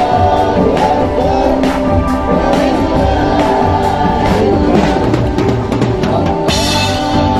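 Live band music: group singing of a religious song over a drum-kit beat. Near the end comes a brief burst of hiss, like a cymbal wash.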